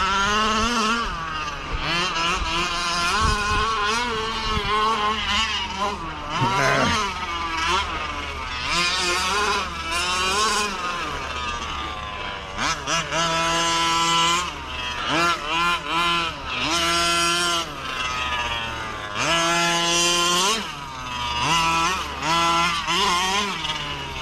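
Small two-stroke petrol engine of a 1/5-scale RC car being driven hard, revving up and down again and again, its pitch climbing with each burst of throttle and dropping off between them.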